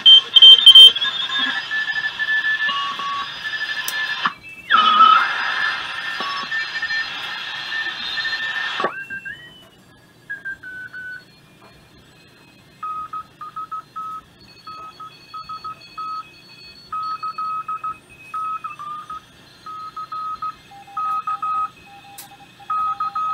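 Hallicrafters S-120 shortwave receiver's speaker playing 40-metre FT8 digital signals, many stepping tones at once, which stop about nine seconds in with a short rising whistle as the dial is tuned. After that, Morse code (CW) tones keyed on and off at a steady pitch.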